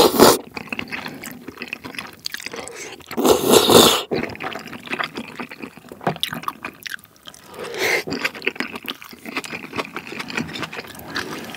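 Wet slurping of saucy tteokbokki off chopsticks, loudest right at the start and again about three seconds in, with a shorter slurp near eight seconds. Between them, close-up wet chewing and smacking of the chewy rice cakes.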